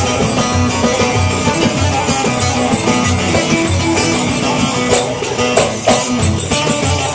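Live band playing an instrumental passage of a Turkish folk song: a guitar over a steady low beat.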